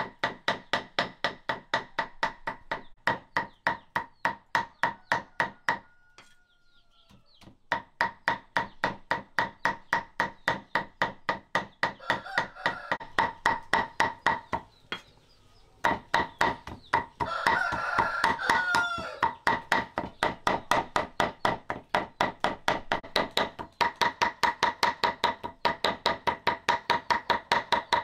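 Fast steady chopping on a board, about three ringing strokes a second, with two short pauses. A rooster crows twice around the middle.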